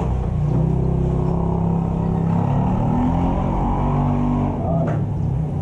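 A motor engine running, its pitch stepping up and down, with a single short thump about five seconds in.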